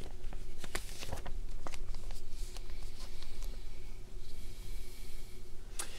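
Studio room tone during a pause in talk: a steady low hum with a few faint clicks.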